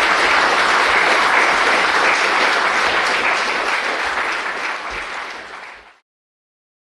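Audience applauding steadily, then fading and cut off abruptly near the end.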